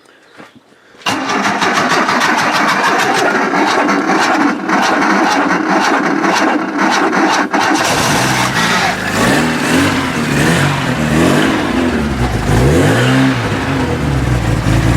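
Opel Kadett D's petrol engine, long a non-runner, being cranked on the starter with the choke out: steady, even cranking for about seven seconds before it fires about eight seconds in and runs, its pitch rising and falling as it is revved.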